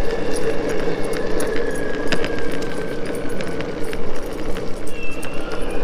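Boosted Stealth electric skateboard rolling over cracked asphalt: a steady rumble from the wheels with a thin motor whine that fades about three seconds in. Scattered clicks and a light metallic jingle run through it.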